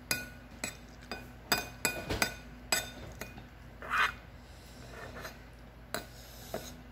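A metal spoon clinking and scraping against a ceramic bowl, a dozen or so short ringing clinks coming fastest in the first three seconds, with a brief rasping sound about four seconds in.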